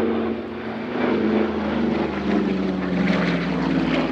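A Douglas C-47A Skytrain (DC-3) flies past on its two Pratt & Whitney R-1830 Twin Wasp radial engines and propellers, with a steady drone. The pitch falls steadily as the plane passes and climbs away.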